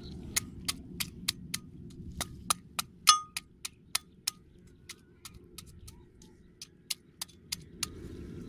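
A machete blade striking down again and again onto a steel hammer head, more than twenty sharp metallic clinks with brief ringing, the loudest clang about three seconds in.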